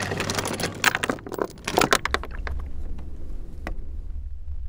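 Galvanised anchor chain clinking and rattling against the windlass and deck in a quick run of irregular metallic clanks, loudest between about one and two seconds in. After that a low steady rumble remains, with a few faint clinks.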